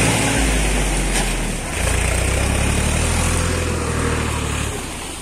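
Tractor engine running with a low, steady drone that shifts in pitch a few times.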